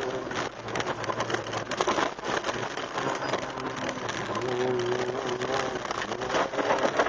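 In-car sound of an Opel Astra GSi rally car's 2.0-litre four-cylinder engine running hard on a gravel stage, its note dipping in the middle and coming back strongly about four and a half seconds in. Gravel and stones patter steadily against the car's body and underside throughout.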